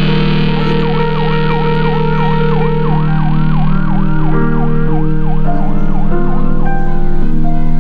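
Ambulance siren in a fast wavering yelp, about three sweeps a second, starting just under a second in and stopping about seven seconds in, over sustained music chords and a bass line.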